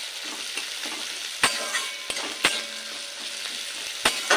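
Sliced onions sizzling in hot oil in an aluminium kadai, being browned. A metal spatula stirs them, scraping and clicking sharply against the pan about five times.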